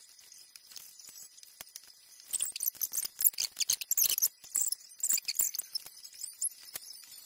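Loose plastic LEGO pieces clicking and clattering as they are handled and picked through. A few scattered clicks at first, then a dense flurry of clicks starting about two seconds in and lasting about three seconds.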